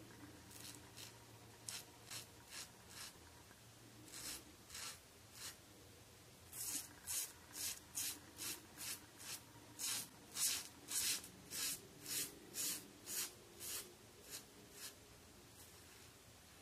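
Rockwell 6C safety razor blade scraping stubble off a lathered scalp in short, even strokes, about two a second, fainter at first and crisper and louder through the middle stretch.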